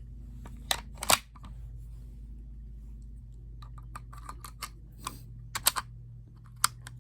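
Sharp metal clicks and clacks of an airsoft Mauser bolt-action rifle being loaded from a stripper clip and its bolt worked: two loud clacks about a second in, then a run of lighter clicks from about halfway and two more clacks near the end.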